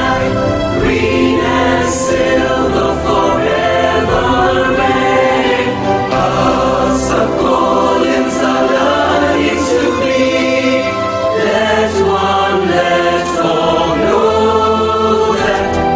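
A choir singing with musical accompaniment, sung words over held low notes that change every second or two.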